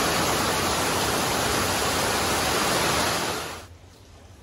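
Heavy rain pouring down, a loud steady hiss that cuts off abruptly near the end.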